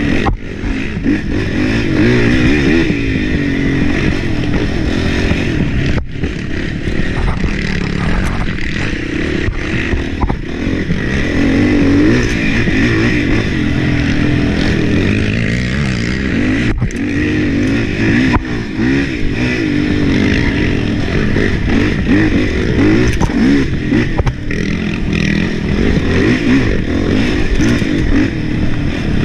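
Sport quad's engine running hard on a rough trail, close to the onboard camera, its revs rising and falling with the throttle. There are brief cut-outs about six seconds in and again about seventeen seconds in.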